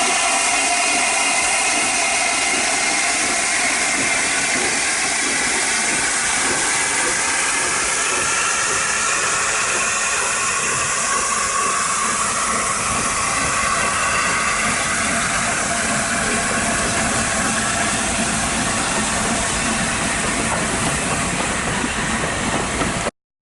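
Steam hissing steadily from LNER Peppercorn Class A1 locomotive 60163 Tornado, with faint whistling tones that drift slowly in pitch. It cuts off suddenly near the end.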